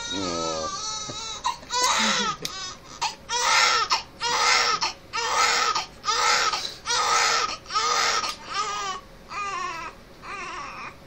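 Newborn baby crying: a long wail, then short rhythmic cries about one a second, growing quieter over the last couple of seconds.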